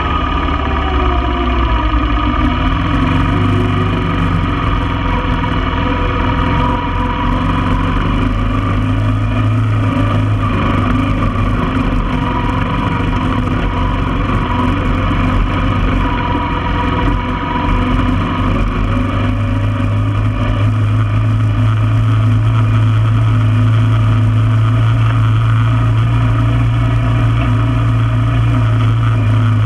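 1995 Honda Foreman ATV's single-cylinder engine running as the four-wheeler drives along, its pitch falling in the first few seconds, then holding a steadier, slightly louder note from about two-thirds of the way through.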